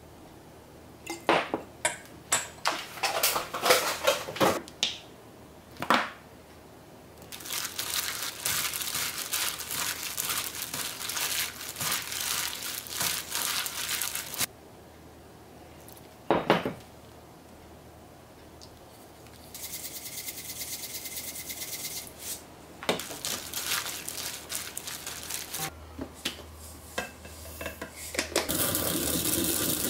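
Kitchen food-preparation sounds: utensils clicking and knocking against dishes and bowls in short clusters, with several stretches of steady hiss in between.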